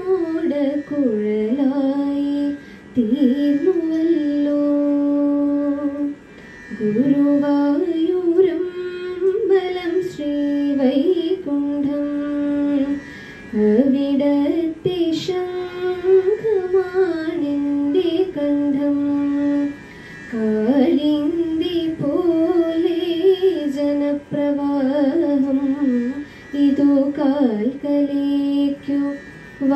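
A young woman singing solo into a microphone without accompaniment. She sings a slow melody of long held notes with pitch bends and quavers, in phrases broken by short pauses every few seconds.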